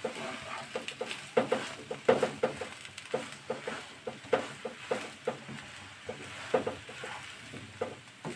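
Spatula stirring and pressing mashed-potato masala around a nonstick kadai: irregular knocks and scrapes against the pan, a couple a second, each with a brief ring of the pan.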